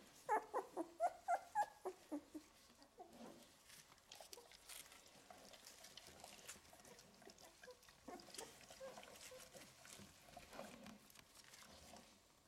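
Eleven-day-old golden retriever puppies whimpering. A quick run of short, high squeaks comes in the first two seconds, followed by fainter scattered whines.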